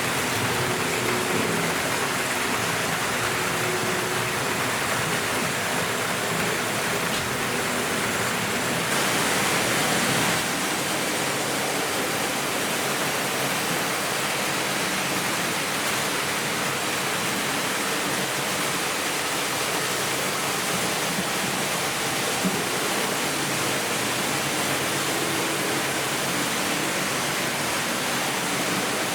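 Several Märklin H0 model trains running at once: a steady rushing, rattling noise of wheels and motors on the track, swelling slightly for a second or so about nine seconds in.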